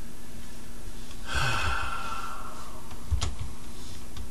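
A man sighs once, a breathy exhale of under a second about a second and a half in. A single light click follows a little after three seconds, over a faint steady hum.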